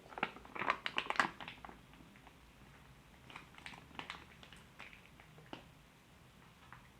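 Small sticky clicks and crackles from hands working slime and kinetic sand: a dense flurry in the first second and a half, then scattered single clicks.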